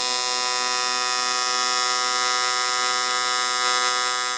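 AC TIG welding arc on aluminum from a Longevity Tigweld 200EX set to 120 Hz AC frequency: a steady buzz pitched at twice the 60 Hz starting frequency.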